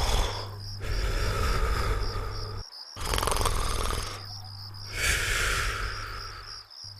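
Cartoon snoring: a rattling snore on each in-breath alternating with a higher out-breath, about one full breath every four seconds. A high, steady chirring runs underneath.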